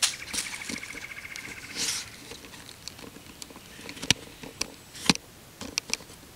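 Footsteps crunching through dry fallen leaves on a woodland floor, with a fast trill in the first two seconds. After that come several sharp clicks, the loudest about four and five seconds in.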